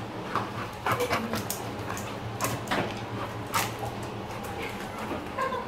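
Staffordshire terrier playing rough with a brush in its mouth on a tiled floor: scattered knocks and clatters of the brush and claws, with a few short dog whines.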